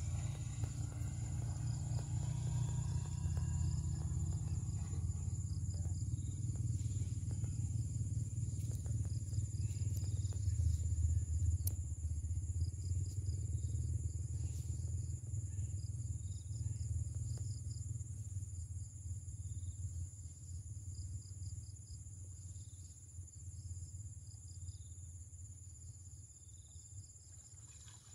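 Insects chirping in quick repeated trills, with a steady high whine, over a low rumble that swells toward the middle and fades near the end.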